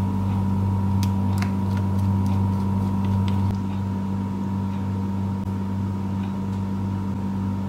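Steady low electrical hum of a kitchen appliance, with a few faint taps and scrapes of a silicone spatula on a glass mixing bowl as thick brownie batter is scraped out.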